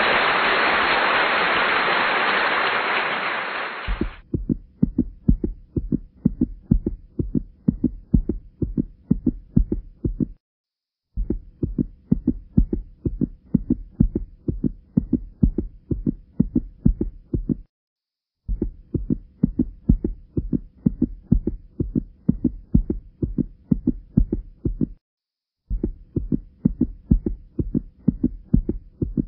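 A loud hiss for about four seconds, then a fast heartbeat sound: regular low thumps, repeated in stretches of six or seven seconds with short silent breaks between them.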